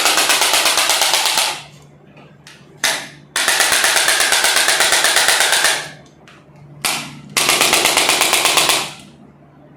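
A handheld electric percussion device hammers rapidly, about ten strokes a second, in three runs of roughly two seconds each. The second and third runs are each led by a brief short burst.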